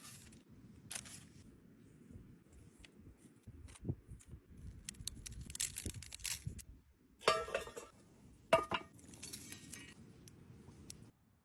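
Light clinks and clicks of utensils against dishes, with two sharper clatters partway through, over a low steady background noise that cuts off suddenly near the end.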